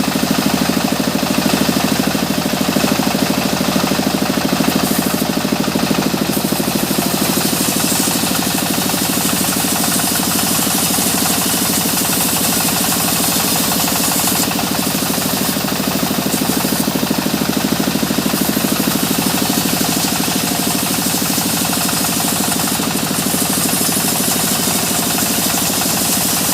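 Engine-driven sawmill machinery running steadily while sawing mahogany: a fast, even engine beat under a high saw hiss that grows brighter and fades back a few times.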